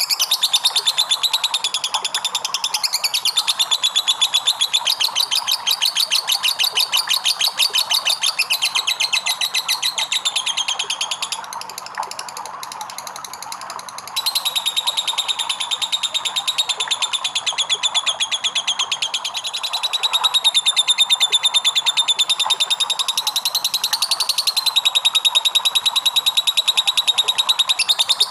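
Lovebird ngekek: a long, rapid chattering trill of high, quickly repeated notes that hardly pauses. It goes softer for a couple of seconds about twelve seconds in, then picks up again at full strength.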